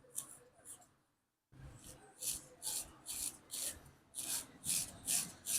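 Razor blade scraping across a scalp in short repeated strokes, about two a second, with a brief break about a second in.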